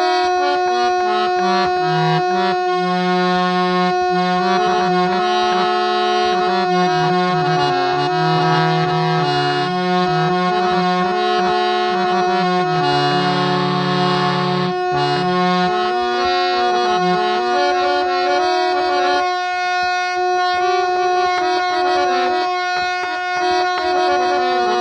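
Harmonium fitted with old Palitana reeds by Jivan Lal Kanji & Sons (bass and male reed sets), playing a melody in the low register over one steady held note.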